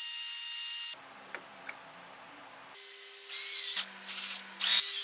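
A brass ferrule being turned on a lathe, cutting with a steady hiss, cuts off after about a second. After a quieter stretch with a couple of clicks, an electric drill bores into the end of a wooden tool handle in two short loud bursts.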